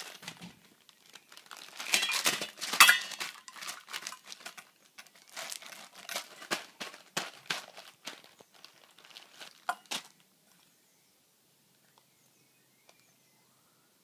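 A baby handles a stainless steel mixing bowl and the crinkly things around it on a carpeted floor, making dense irregular knocks, scrapes and crinkles. They are loudest about two to three seconds in and die away about ten seconds in.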